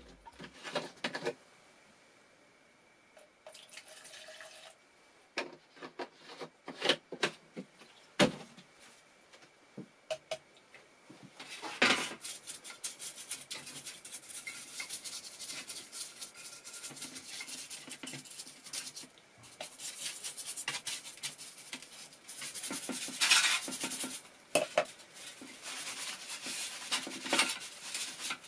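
Clinks and knocks of small metal plane parts being handled on a tray. From about halfway on comes steady scratchy scrubbing as a small brush cleans inside the cast-iron body of a vintage Stanley plane, louder in a few stretches.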